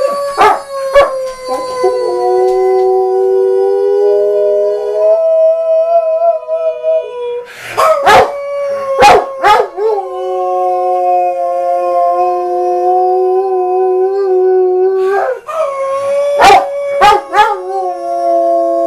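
A Doberman howling in long held notes while a man howls along with it, the two voices holding different pitches at the same time. Clusters of short sharp calls break in near the start, about eight seconds in and again about fifteen seconds in.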